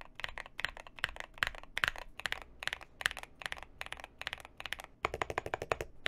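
Typing on a TKL mechanical keyboard with anodized-aluminum keycaps: a steady run of sharp key clacks, a little sharper than plastic caps. About a second before the end it cuts to the same kind of typing on doubleshot PBT keycaps, with quicker, denser clacks.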